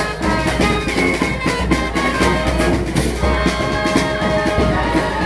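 A brass street band plays a lively tune with horns and drums, the horns holding long notes over a steady beat.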